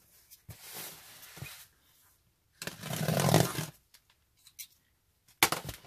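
Cardboard shipping box being picked up and handled: short rustles, a longer rustle of about a second in the middle, then a few sharp crackles and knocks near the end.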